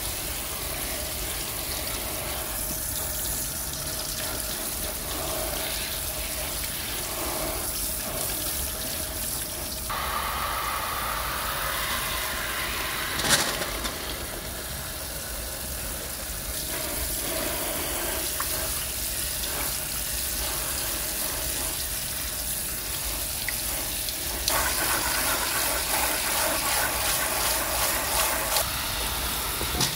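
Tap water running hard from a spray faucet and splashing onto fruit in a stainless steel mesh colander and over a plastic fruit pack. The splashing changes in tone about ten seconds in and again near twenty-five seconds, with one sharp click about thirteen seconds in.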